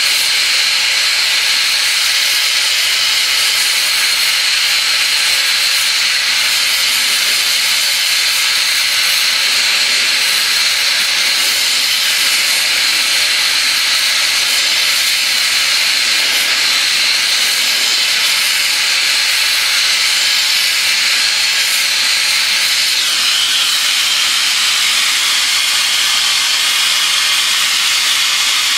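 Oxy-fuel torch flame hissing steadily as it is played on a steel bar held in a vise, its tone shifting slightly about three-quarters of the way through.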